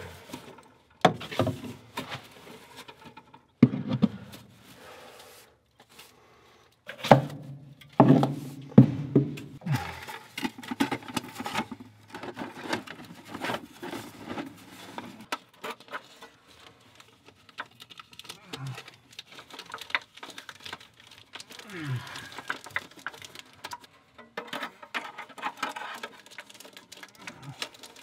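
Galvanized sheet-metal dryer duct being handled and fitted into place: irregular knocks, scrapes and rattles of thin metal, in uneven clusters.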